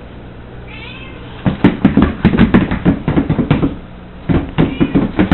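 A miniature pinscher in winter boots clattering on a wooden parquet floor: quick, irregular runs of thumps and knocks, starting about a second and a half in and again near the end. A short high whining call with falling pitch comes about a second in.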